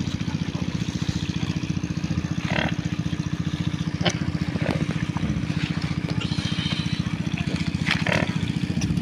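A small engine running steadily with an even, fast beat, with a few short, higher sounds over it about two and a half, four and eight seconds in.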